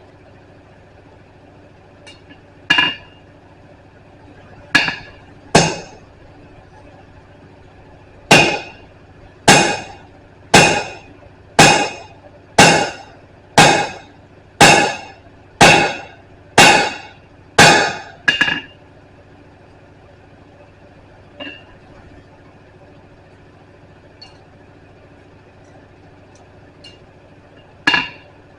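Blacksmith's hand hammer striking hot steel on an anvil while forging a chisel-style flatter, each blow ringing briefly. A few spaced blows, then a steady run of about ten at roughly one a second, a lone light tap, and blows starting again near the end.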